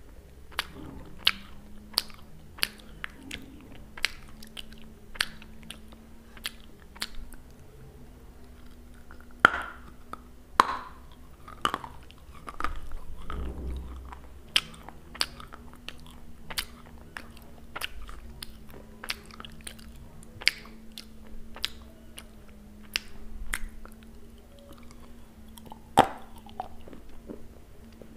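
Close-miked crunching and chewing of a hard, brittle piece of clay: a run of sharp, crisp cracks about every half second to second, with a few louder bites near the middle.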